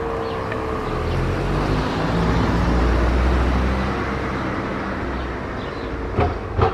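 L141 motor siren winding down after a test: its wail dies away in the first second, leaving a faint steady tone. A low rumble swells and fades over the middle seconds, and two sharp knocks come near the end.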